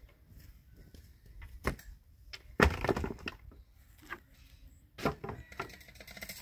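A few sharp cracks and snaps: a dense, loud cluster about two and a half seconds in and another short group about five seconds in.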